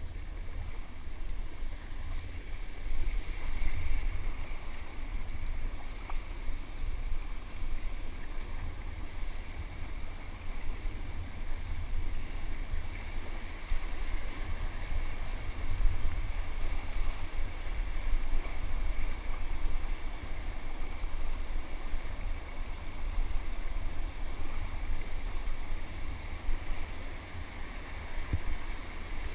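Rushing whitewater of river rapids around a kayak, a steady hiss, with a fluttering low rumble of wind buffeting the microphone.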